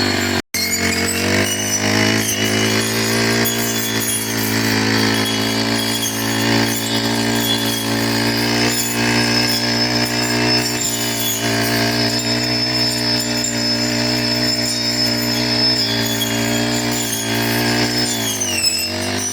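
Four-stroke brush cutter engine running steadily at high speed while cutting grass. It drops out for a split second about half a second in, and near the end its pitch dips briefly and climbs back.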